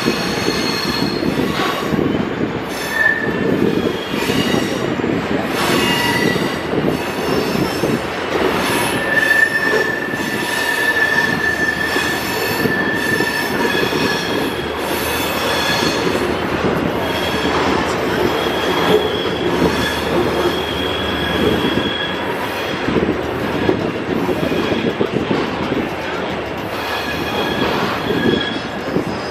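Passenger train rolling through a curve, heard from aboard: a steady rumble of wheels on rails, with several high-pitched wheel squeals coming and going. The longest squeal lasts about five seconds near the middle.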